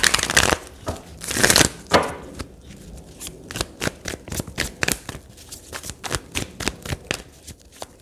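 A tarot deck being shuffled by hand: a couple of sliding swishes, then a long run of quick card clicks.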